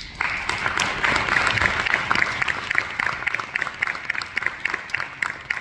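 Audience applauding: a dense patter of clapping that starts just after the opening and thins out to scattered separate claps near the end.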